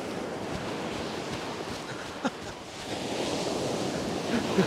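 Ocean surf breaking and washing up the sand, growing louder a little past halfway through, with wind buffeting the microphone.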